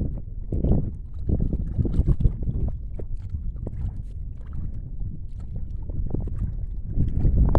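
Wind buffeting the microphone: a gusty low rumble, with scattered faint knocks or splashes on top.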